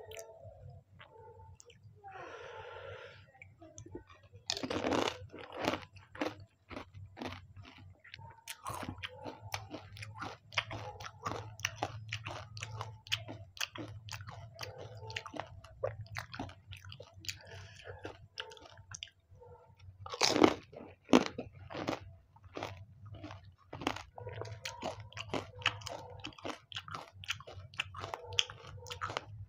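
Close-up eating of pani puri: crisp puri shells crunching between the teeth, then chewed in a run of many quick crackles, with the loudest crunches about five seconds in and again about twenty seconds in.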